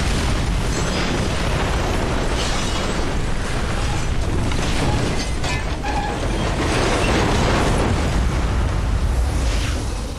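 Special-effects explosion and fire on a pub set: a loud, steady low rumble with crackling and pops throughout.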